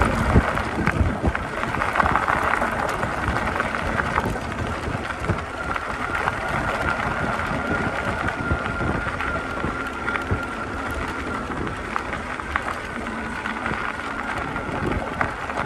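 Fat-tyre electric bike rolling along a gravel road: steady crunch and rumble of the tyres on loose gravel with wind noise on the microphone and small knocks from the bumps. A thin steady whine comes in for several seconds in the middle.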